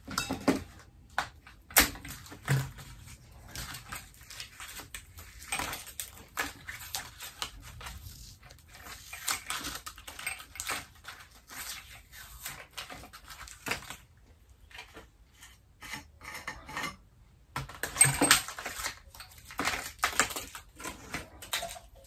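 Scattered clinks, taps and clunks of metal tools and strut parts being handled on a workbench while a damper is fitted into a car suspension strut, with a quieter stretch past the middle and a louder cluster of knocks a little before the end.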